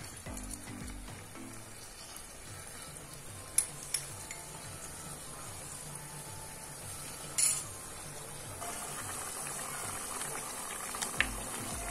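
Yellow coconut-milk curry simmering in a wok, a steady bubbling sizzle, with a few sharp clinks of kitchen utensils.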